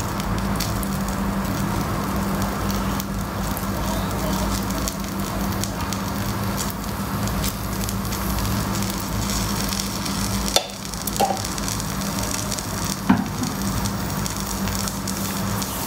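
Ghee sizzling steadily under a paneer paratha on a hot flat pan (tawa) as it cooks, over a steady low hum. Two light knocks come about ten and thirteen seconds in.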